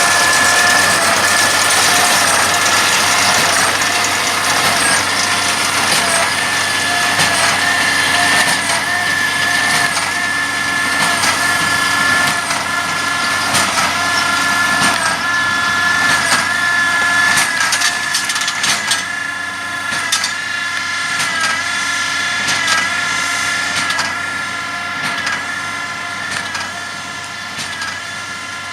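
Fendt 716 tractor and Massey Ferguson 2240 baler working in hay: a steady mechanical whine with a regular beat about every 1.3 seconds and scattered sharp clicks, slowly fading as the outfit moves away.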